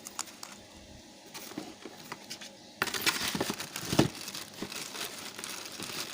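Plastic packaging crinkling as it is handled, starting about three seconds in after a few light clicks, with a sharper click a second later.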